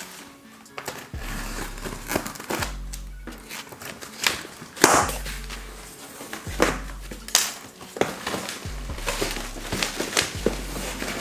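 Background music with a repeating bass line, over sharp clicks, knocks and crinkling as a new vacuum cleaner's box and plastic packaging are opened and handled.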